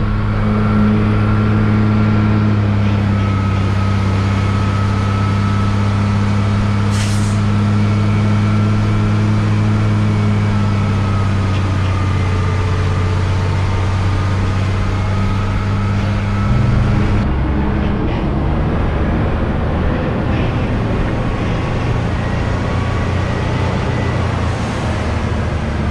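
Hino 500 truck's diesel engine running steadily under load, heard from inside the cab, with a low drone whose note changes about two-thirds of the way through. A brief hiss comes about seven seconds in.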